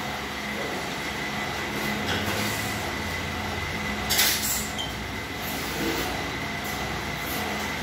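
Homemade hand-cranked roller bender working a perforated steel strip: a steady metallic rumble of the rollers turning and the strip passing through, with a brief louder scrape about four seconds in.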